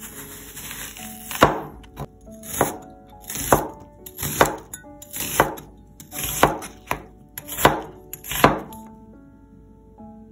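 A cleaver slicing half an onion on a bamboo cutting board: eight strokes about a second apart, each a crisp crunch through the onion that ends in a knock of the blade on the board. Light background music plays underneath.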